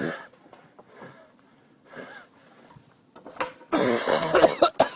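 A man coughing and clearing his throat in several harsh bouts, the longest and loudest about four seconds in.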